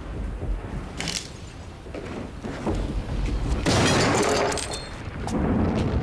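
A series of booms and crashes over a low rumble, with a single hit about a second in and the loudest, a long crashing burst, about four seconds in, then another shorter one near the end.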